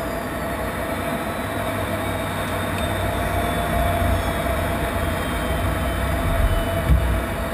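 Cockpit noise of an F-16 fighter in flight: its single jet engine and rushing air give a steady noise with a constant mid-pitched hum. A low rumble grows stronger in the second half, and there is a brief thump near the end.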